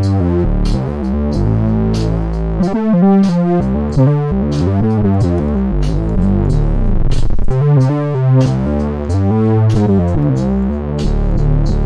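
Synth bass patch from the Pure Synth Platinum software instrument played on a keyboard, with held low notes moving through a bass line over a programmed drum beat with a steady hi-hat pulse.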